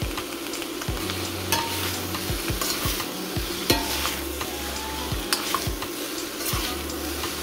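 Miki noodles sizzling in a stainless steel pan while being tossed and stirred with utensils, with scattered clicks of the utensils against the pan.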